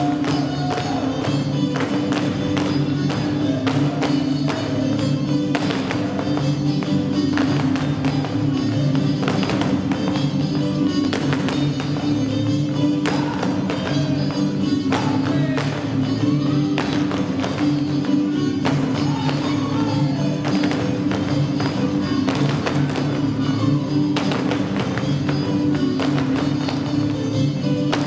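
Mexican folk son music from Nayarit playing, with dancers' zapateado stamps on a wooden stage floor, the heel-and-toe strikes coming in quick rhythmic runs over the music.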